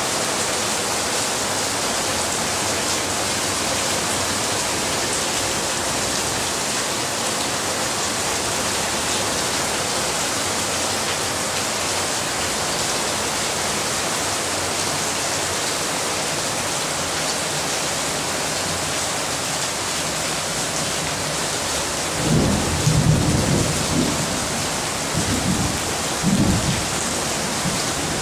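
Heavy rain pouring steadily, a dense even hiss. About three-quarters of the way through come a few low rumbles lasting several seconds, louder than the rain.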